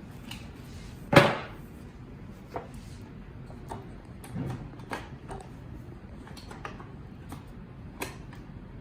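Handling knocks on the D-502 paper drilling machine: one loud sharp clunk about a second in, then several lighter knocks and clicks.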